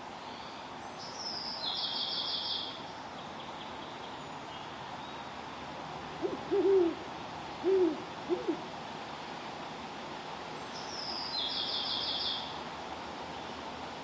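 Great horned owl hooting: one series of about five low hoots, the middle ones longest, a little under halfway through. A small songbird's short high trill sounds faintly twice, near the start and near the end.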